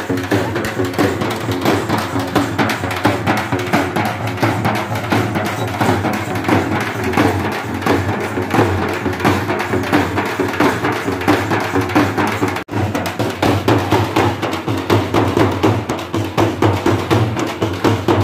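Several dappu frame drums beaten with sticks in a fast, dense, driving rhythm. The sound drops out for an instant about two-thirds of the way through.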